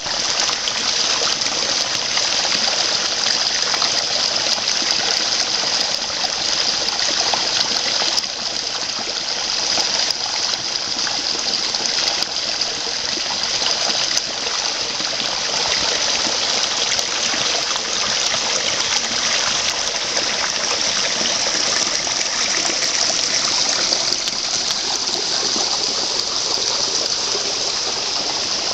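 Small mountain stream running and splashing over mossy boulders in a steady rush of water.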